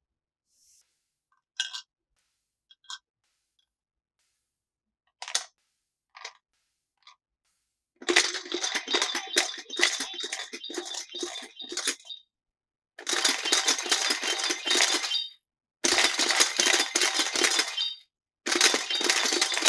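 A few scattered clicks, then four bursts of rapid clinking and rattling of small hard objects, each lasting a few seconds with short pauses between.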